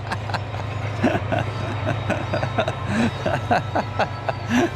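Indistinct voices and chuckling over a steady low hum.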